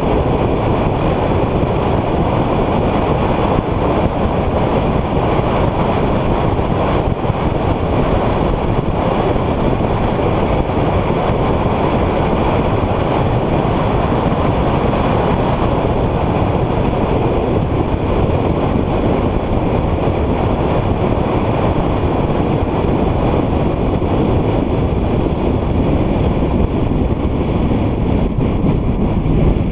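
Car driving at speed on a race track, heard as a loud, steady rush of wind and road noise with no clear engine pitch standing out.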